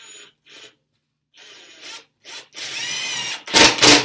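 Cordless power driver sinking a 1 3/4-inch star-drive wood screw into pine: a few short bursts of the motor, then a longer steady run with a wavering whine. It ends near the close with a loud rattling burst as the screw drives home.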